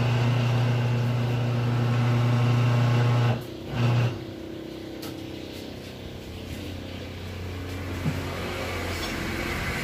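Electric tire changer motor running with a steady hum, stopping about three and a half seconds in, running again for a moment and stopping. A lower, quieter machine hum carries on afterwards.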